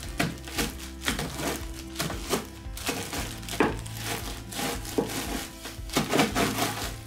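Dry biscuits cracking and crunching inside a plastic bag as a wooden rolling pin presses down on them, crushing them into pieces, with irregular sharp cracks about once or twice a second. Background music with sustained notes plays underneath.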